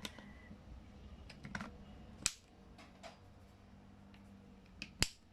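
Faint scattered clicks and taps, with two sharper knocks, one about two seconds in and one near the end.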